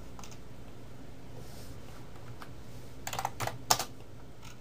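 A quick run of computer keyboard keystrokes about three seconds in, roughly half a dozen taps with the last the sharpest, as a short command is typed and entered. A steady low hum lies underneath.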